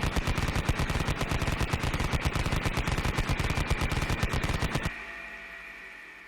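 Sound-effect machine-gun fire: one long rapid burst of about a dozen shots a second over a steady high whine, stopping about five seconds in and leaving a fading tail.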